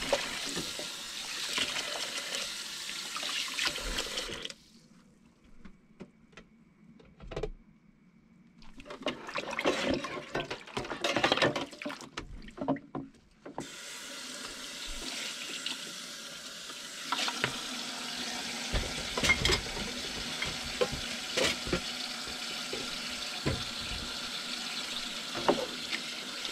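Kitchen faucet running into a sink as dishes are washed, with scattered clinks and knocks of dishes and utensils. The water stops about four seconds in, leaving only clatter, and comes back on about thirteen seconds in.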